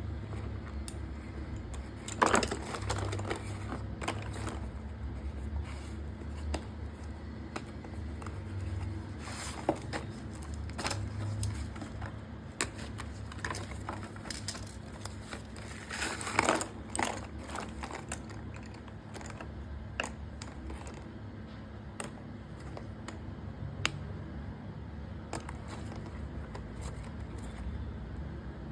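A parcel's packaging being handled and opened close to the microphone: scraping and crinkling with scattered sharp clicks, and louder crackly rustles about 2 seconds and 16 seconds in.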